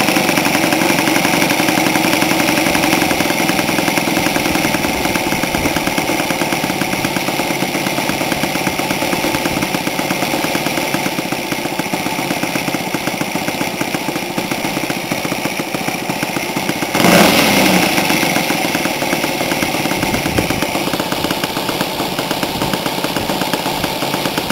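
Thunder Tiger 91 model-airplane glow engine idling steadily on the ground with a big propeller, with a brief louder surge about two-thirds of the way through before it settles back. The engine is still breaking in, its idle nearly right and needing a little more needle adjustment.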